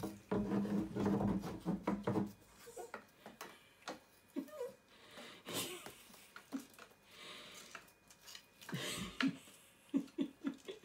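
A wooden stick knocking and scraping against a wooden door and floor as a puppy tries to push it through a hole in the door, with scattered sharp knocks and a cluster of them near the end. A low steady hum sounds for the first two seconds.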